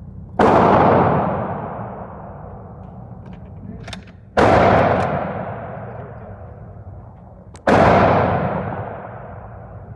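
Three shots from a 6.5 mm Mannlicher-Carcano bolt-action rifle, about four and then three seconds apart, each followed by a long echo that dies away over about two seconds.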